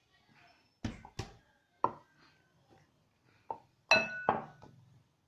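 Kitchenware knocking and clinking on a work surface: about six sharp knocks, the loudest, about four seconds in, ringing briefly like a struck metal or glass bowl.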